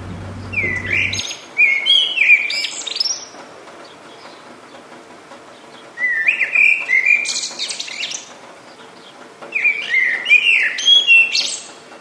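A songbird singing three warbling song phrases a few seconds apart, each a run of quick, sweeping notes ending in higher twittering.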